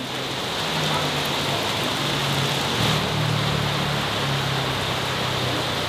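Heavy rain pouring down onto a street, a steady even hiss, with a low hum underneath.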